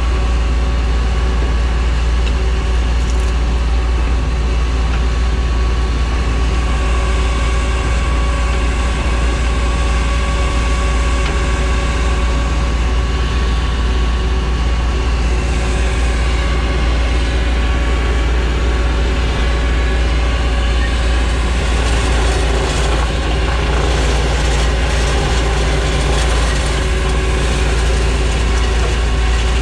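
A large engine running steadily at a constant speed, with a strong low drone and no changes in level.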